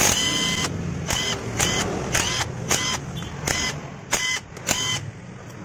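Cordless power driver with an 8 mm socket running in about eight short bursts, each a brief whine, as it spins out the magneto cover bolts of a Honda Mega Pro engine.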